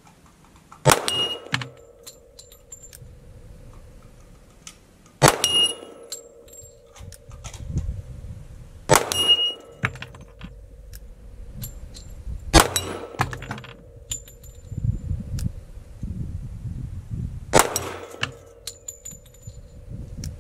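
Five single shots from a .45 ACP pistol fired slowly, about four seconds apart. Each shot is followed by the clang and ring of the steel target plate hanging on chains, lasting about a second.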